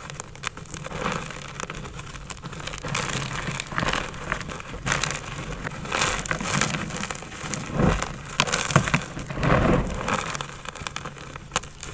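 Blocks of gym chalk being crushed, with crunching and crackling in a run of irregular crunches and sharp crackles.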